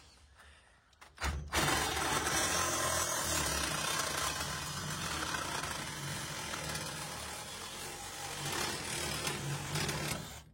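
A power saw cutting through a metal pipe: a couple of brief clicks, then the saw runs steadily for about nine seconds and stops abruptly near the end.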